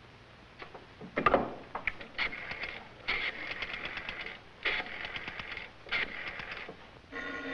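Telephone handset lifted with a clatter, then a rotary dial turned and let go four times, each return a fast, even run of clicks. Near the end a telephone starts ringing.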